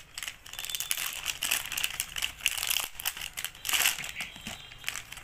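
Clear plastic packet of small paint pots crinkling irregularly as hands pull it open and work the pots out.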